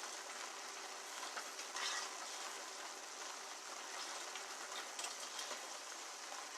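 Food sizzling in a pan on the stove: a steady hiss with a few faint clicks and pops.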